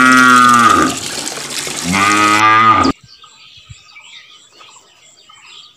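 A cow mooing twice: one long low call at the start and a shorter one about two seconds in. Under the calls is a steady hiss of running water, which cuts off suddenly about three seconds in, leaving faint bird chirps.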